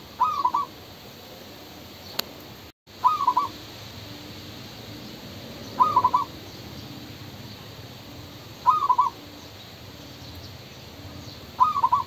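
Zebra dove cooing: five short calls, each a quick run of notes, repeated about every three seconds.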